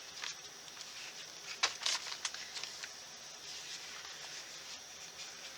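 Scrapbooking papers and stickers being handled on a desk: faint rustling with a few light clicks and taps, the loudest cluster a little under two seconds in.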